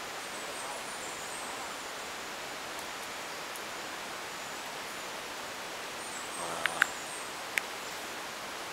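Steady forest background hiss with faint high-pitched chirps. About six and a half seconds in there is a brief low pitched sound, followed by three sharp clicks within the next second.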